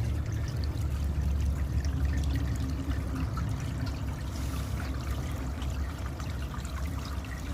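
Water running and trickling steadily in a farm irrigation channel.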